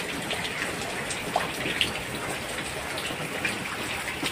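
Heavy rain falling as a steady hiss, with water dripping from a tin roof in scattered separate drops.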